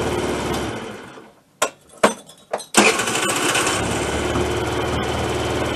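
Znen Eyas 50cc four-stroke scooter engine running, then dying away about a second in. A few short bursts follow before it fires up again just under three seconds in and runs on steadily. The engine is running again now that its burnt-out CDI ignition box has been replaced.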